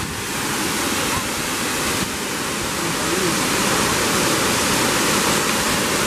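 Tall waterfall plunging onto rocks: a steady rush of falling water.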